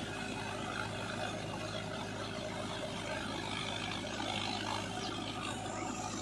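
Mahindra 555 Arjun tractor's diesel engine running steadily under load as it pulls a rotary tiller through flooded paddy mud.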